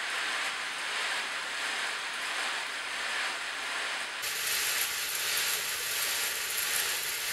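Bicycle being backpedalled by hand: the rear freehub's pawls click steadily as the chain runs backwards through a foam-soaked chain-cleaning sponge.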